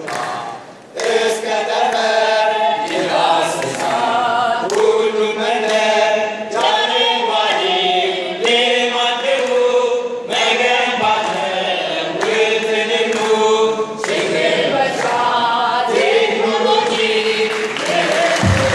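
A group of voices singing together in unison without instruments, in long held phrases, with hand claps keeping a steady beat. Right at the end, louder music with a deep bass comes in.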